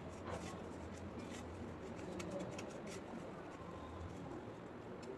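Faint rustle and light crackle of dry roasted vermicelli being pressed onto a bread-wrapped potato cutlet by hand, with scattered small clicks over a low steady hum that fades about four seconds in.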